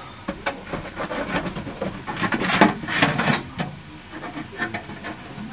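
RV ceiling trim garnish being pried loose and pulled down: a run of clicks, knocks and rubbing, busiest about two to three and a half seconds in.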